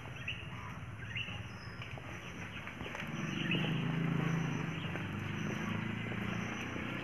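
Outdoor background with faint bird calls. A low steady hum comes in about three seconds in.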